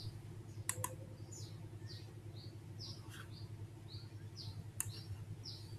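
A small bird chirping: a run of short, high, falling chirps about twice a second over a faint steady low hum. Two sharp clicks, one under a second in and one near the end.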